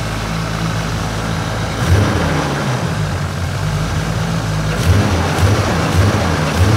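Toyota JZX100 Cresta's turbocharged 3-litre 1.5JZ straight-six (2JZ bottom end, 1JZ head) idling just after its first start in two years. Its revs rise briefly once about two seconds in, then four quick blips come in a row near the end.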